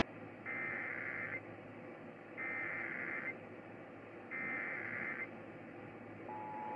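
Emergency Alert System SAME header: three harsh digital data bursts, each about a second long and about a second apart. About six seconds in, the steady EAS attention-signal tone begins, announcing an alert, here a Required Monthly Test.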